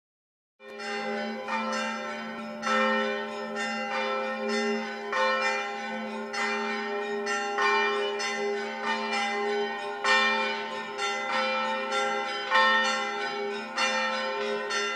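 Church bells of the parish of S. Ermete ringing together, starting suddenly about half a second in. Repeated strikes come about twice a second over a lasting hum of several bell tones.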